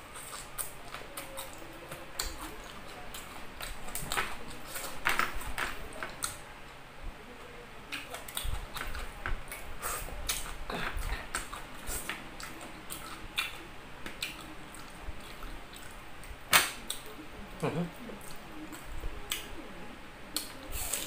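Close-up eating sounds: a man chewing rice and food eaten by hand, with irregular wet mouth clicks and smacks and one sharper click about two-thirds of the way through.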